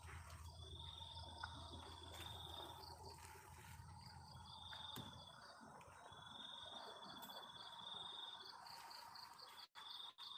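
Faint night insect chorus: high trills lasting a second or two each, repeating with short gaps, over a fainter rapid pulsing.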